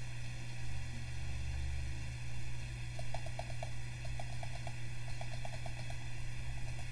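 Steady low electrical hum with background hiss. From about three seconds in come quick runs of soft clicks, a computer mouse clicking or scrolling through a list.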